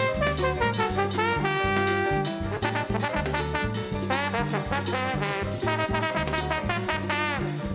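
Upbeat brass-led jazz music, with trumpet- and trombone-like lines over a drum kit keeping a steady beat.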